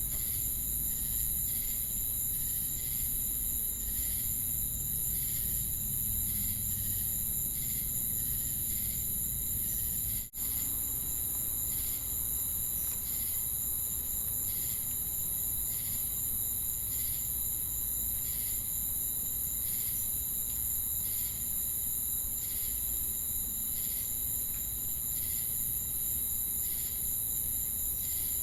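Night chorus of crickets and cicadas: a continuous high-pitched insect drone with steady trills and regular chirps about once a second over a low background rumble. The sound cuts out for an instant about ten seconds in.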